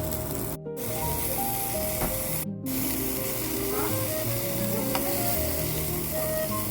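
Food sizzling in hot oil in a frying pan, a steady hiss, over background music.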